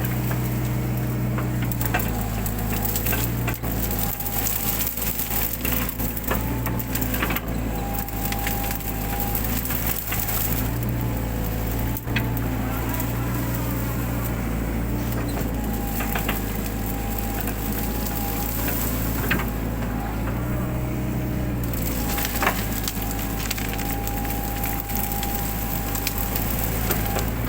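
Mini excavator running, its engine humming steadily and its hydraulics whining with a pitch that shifts as the machine works. Over this come frequent sharp snaps and cracks as the bucket breaks and crushes brushwood and undergrowth.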